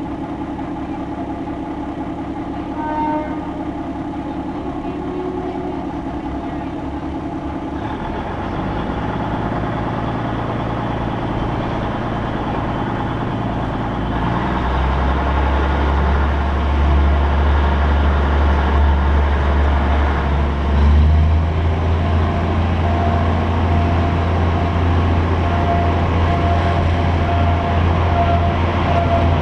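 Diesel-hauled commuter train heard from inside an open-windowed coach, its engine running and the deep drone growing louder about halfway through as the train gets under way. Near the end a repeating warning tone from a level crossing joins in.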